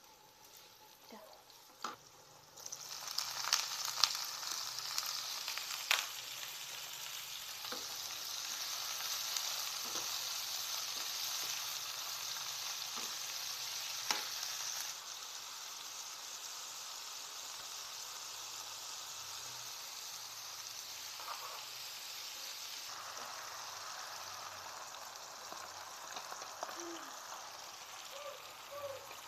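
Sliced bitter melon stir-fried in hot oil in a wok: the sizzle jumps up sharply about three seconds in as the slices go into the pan, with occasional knocks and scrapes of a wooden spatula. The sizzle drops to a quieter, steady level about halfway through.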